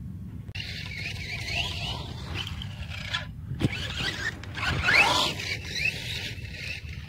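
Brushless electric motor of a DHK Crosse BL RC monster truck whining up and down in pitch as the throttle is worked, over a low rumble. There is a single thump about halfway through, and the loudest rising whine comes near the end as the truck climbs a sand pile.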